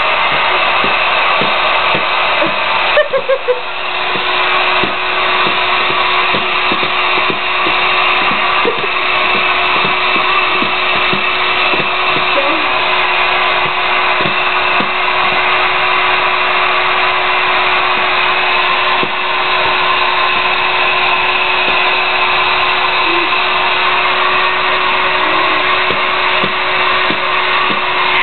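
Handheld hair dryer running steadily on one setting: a loud, even rush of air over a constant motor hum.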